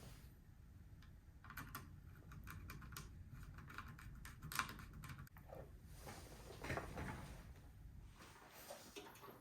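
Faint scattered clicks and rustling from handling small computer parts by hand, with the sharpest click about four and a half seconds in.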